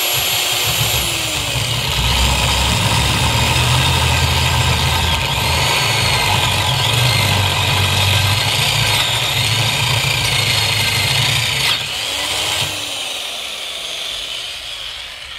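Homemade electric drill boring a 16 mm bit through a steel channel, the motor whining and its pitch wavering under load over a heavy low rumble from the cut. The bit wobbles in the chuck. About twelve seconds in, the rumble of the cut stops and the motor runs on more lightly.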